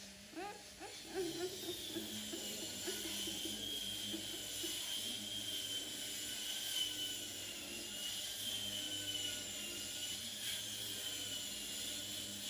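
Baby macaque giving a few short rising squeaks in the first second or so, followed by a steady high-pitched hiss with a faintly wavering whine in the background.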